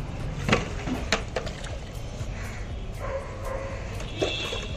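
A dog barking: a few short, sharp barks in the first second and a half, and one more near the end.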